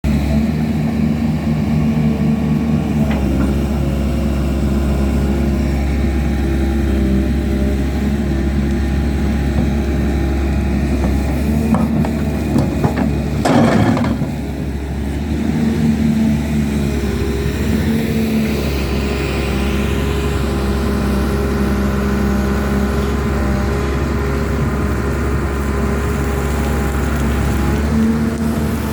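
Heavy diesel earthmoving machinery, an excavator and dump trucks, running steadily under load, with a brief loud rushing swell about halfway through.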